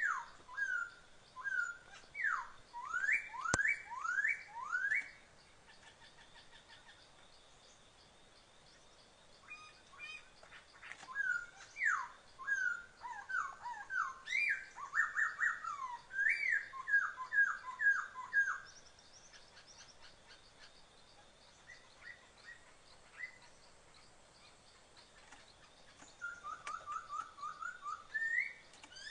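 A songbird singing: runs of quick, clear whistled notes, each sliding downward in pitch, repeated several times a second in three bouts with pauses between them.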